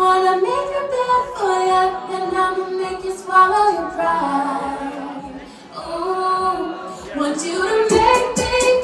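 A woman's voice singing long held notes that slide between pitches, with almost no accompaniment; near the end a dance beat with a steady drum pulse comes in under the voice.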